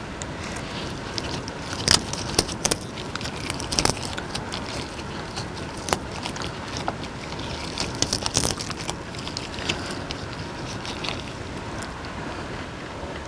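Close-miked rustling of disposable gloves and fresh herb leaves as the leaves are picked apart, with scattered sharp clicks and taps over a steady hiss.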